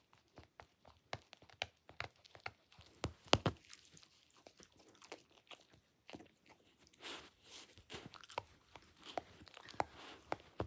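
A dachshund chewing and gnawing on a plush corduroy toy: irregular crunching clicks of teeth with short rustles of fabric, the sharpest click about three and a half seconds in.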